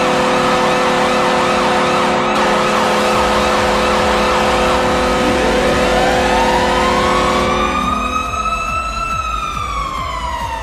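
Hockey arena goal horn blaring on one steady chord over a cheering crowd. About five seconds in, a siren winds up, peaks as the horn cuts off near eight seconds, then winds down.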